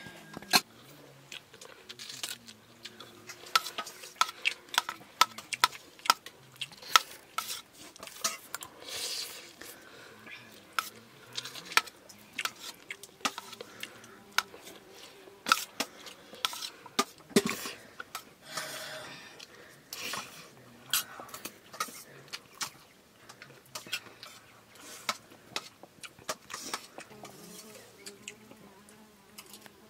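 Metal spoon clinking and scraping against a stainless steel plate of rice and curry while eating, in many short, irregular clicks.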